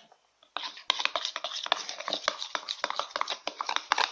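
Glue and dye being stirred together for slime: rapid, irregular sticky clicks and smacks, starting about half a second in.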